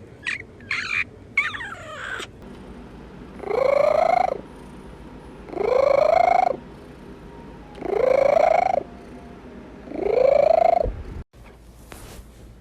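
A cat giving four long, drawn-out meows about two seconds apart, each rising in pitch and then holding, after a few short, quick calls in the first two seconds.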